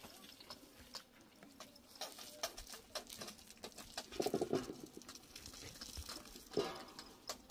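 Scattered light clicks, knocks and scrapes of someone moving on stony ground and handling a metal basin. A short pulsing animal call stands out about four seconds in, with a briefer one near the end.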